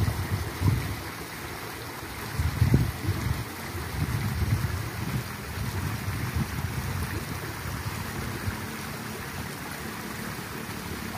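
Wind buffeting the microphone in low, uneven rumbles, strongest about two and a half seconds in, over a steady outdoor hiss.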